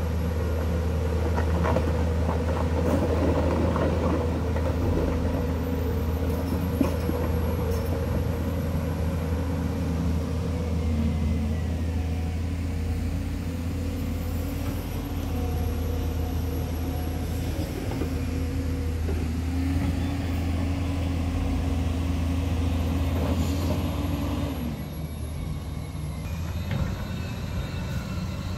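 Diesel engines of heavy earthmoving machines running steadily with a deep, even hum: first a JCB tracked excavator, then, after the sound drops and changes about 25 s in, a wheel loader pushing dirt.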